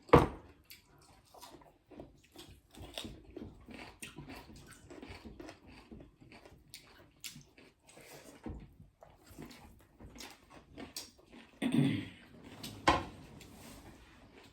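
People eating by hand: chewing and lip smacking with many small clicks and the odd knock against a plate. There is a sharp knock right at the start and a louder, low murmured sound about twelve seconds in.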